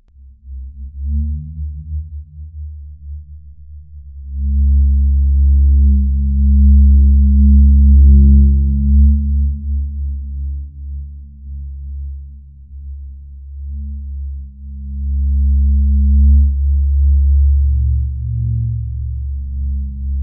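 Deep, ominous horror-film drone: a loud, steady low hum with no clear melody. It swells about four seconds in, eases off midway, and swells again later.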